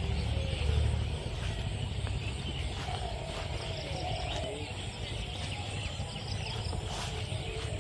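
Outdoor rural ambience while walking: a steady low wind rumble on the microphone, a few faint distant calls in the middle and scattered soft clicks.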